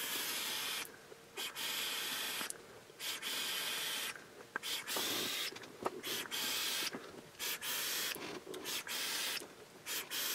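Rapid chain-vaping on a rebuildable dripping atomizer with a 0.32-ohm coil build: a string of hisses from the draws through its fixed airholes and the breaths of vapour, each about a second long with short gaps between.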